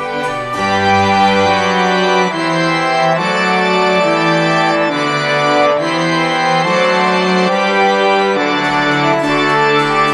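Organ music: slow, held chords that change every second or so.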